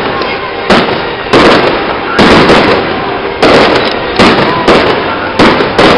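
Aerial firework shells bursting one after another: about seven loud bangs, unevenly spaced, over a constant noisy rumble.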